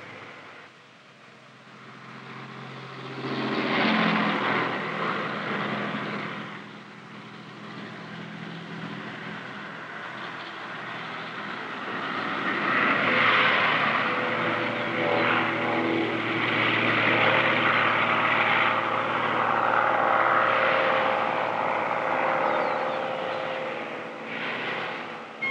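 A vehicle passes about three seconds in. Then a propeller airplane flies over, its engine drone swelling for about ten seconds and fading near the end.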